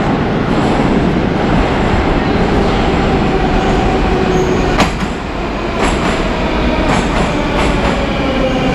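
Moscow metro train pulling into the station: a loud rush of train noise, a whine that slowly falls in pitch as it slows, and wheels clicking over rail joints several times in the second half.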